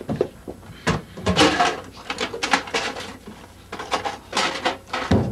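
Office desk drawers being pulled open and pushed shut while their contents are rummaged through: a run of irregular knocks, rattles and rustles.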